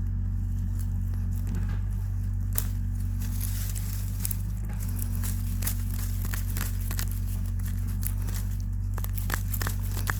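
A tree branch scraping and prying in soil and leaf litter while digging up a deodeok root: irregular crackling and snapping clicks, thicker from a few seconds in, over a steady low hum.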